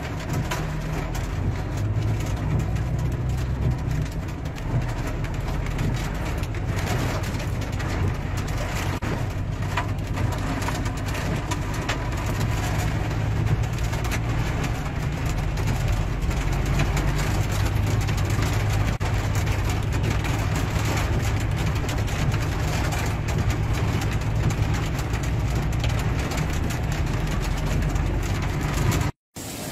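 A car driving along a road covered in hailstone slush, heard from inside the cabin: a steady low engine and road rumble, with a dense crackle of small hits over it.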